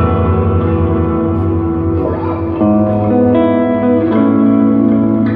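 Guitar played through a Line 6 HX Stomp multi-effects processor set for ambient tones: sustained notes ring and overlap in a wash, over a held low note, with new notes coming in about two and a half seconds in and again about four seconds in.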